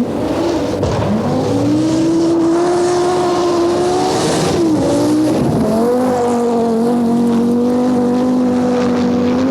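Group B rally car engine pulling hard: its pitch climbs for about four seconds, drops briefly around five seconds in, then rises again and holds high and steady.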